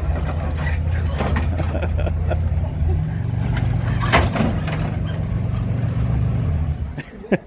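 A vehicle engine running steadily at idle, a deep low hum that cuts off suddenly near the end, with one short sharp sound about four seconds in.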